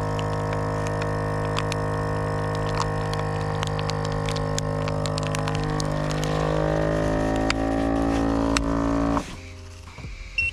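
Countertop vacuum sealer's pump running on a vacuum-seal cycle as a plastic bag of fish is drawn tight, with scattered crackles. Its tone shifts and grows a little louder about six to eight seconds in, and the motor cuts off suddenly about nine seconds in. A short beep sounds right at the end.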